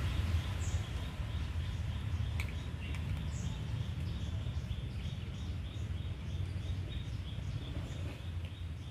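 Two cats eating from a plastic plate, with faint quick chewing ticks a couple of times a second, over a steady low outdoor rumble. A couple of short, high bird chirps come in, near the first second and again about three seconds in.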